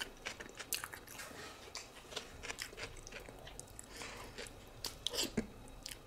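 Close-miked eating sounds: faint, irregular wet chewing and lip smacks as hard-boiled eggs in spicy sauce are eaten by hand, with squishes of sauce-covered fingers. A few slightly louder smacks come about five seconds in.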